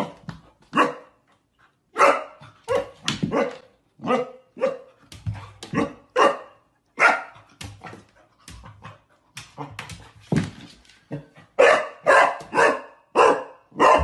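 Golden retriever puppy barking at its own reflection in a mirror: a long string of short barks, irregularly spaced and bunched in quick runs.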